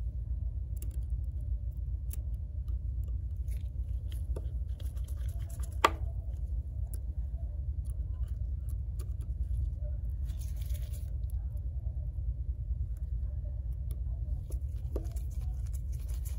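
Faint clicks and scratches of a small tri-point screwdriver driving tiny screws into the metal home-button bracket of a phone screen, with one sharp click about six seconds in, over a steady low hum.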